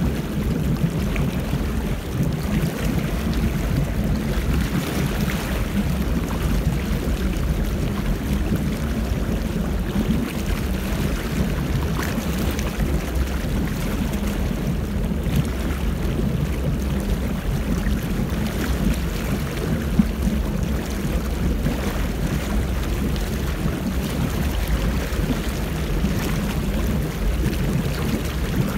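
Motorboat engine running steadily at towing speed, with wind and water rushing past.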